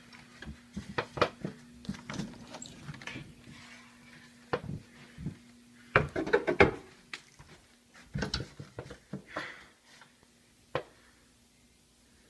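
Irregular clicks, knocks and rustles of hard objects being handled, loudest and busiest about six to seven seconds in, over a faint steady hum.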